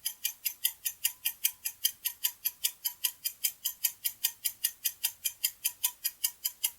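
Ticking clock sound effect, fast and even at about five ticks a second, timing the pause for the viewer to answer a quiz question.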